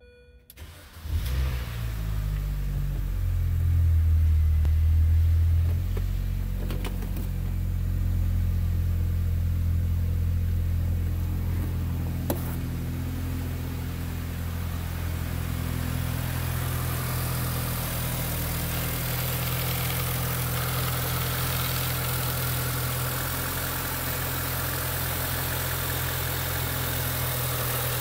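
A 2005 Mini Cooper's 1.6-litre four-cylinder petrol engine starts about a second in. It runs louder for a few seconds after catching, then settles into a steady idle. In the later part the idle is heard close up, with more hiss on top.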